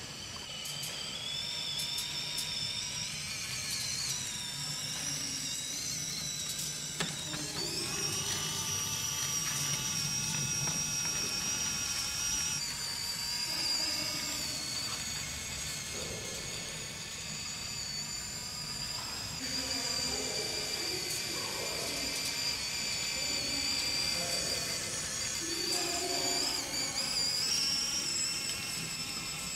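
High-pitched whine of small electric motors in 1/32-scale RC model farm vehicles, the pitch gliding up and stepping between levels as the models change speed.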